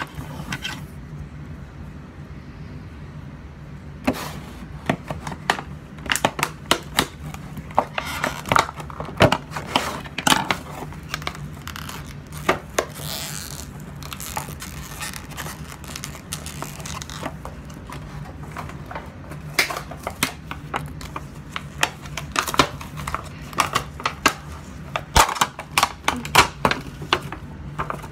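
Clear plastic toy packaging being handled and pulled open, crinkling and tearing in scattered bursts of crackles and clicks.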